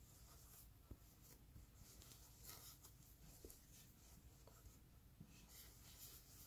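Faint, irregular scratchy rustling of thick wool yarn being drawn through stitches with a metal crochet hook, with a small click about a second in.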